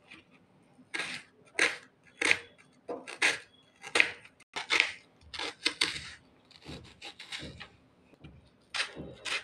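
Kitchen knife slicing through a red onion onto a cutting board: a crisp cut about every half second to second, starting about a second in.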